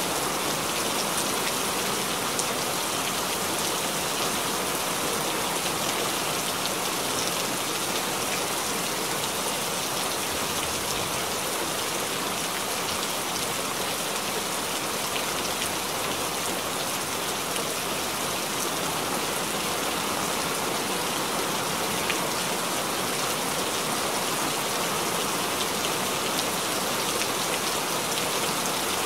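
Steady rain falling, a dense even hiss of drops on a surface with scattered individual drop ticks and no letup.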